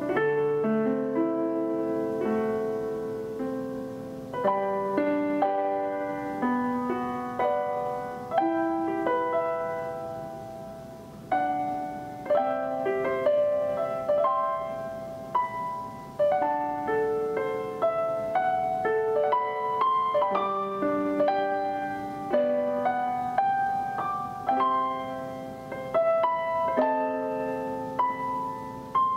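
Background piano music: a gentle piece of notes and chords that strike and fade away.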